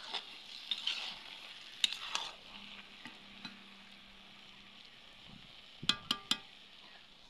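Chopped leafy greens sizzling in a large black iron wok while a spatula stirs and scrapes them through the pan. About six seconds in come three quick sharp clicks.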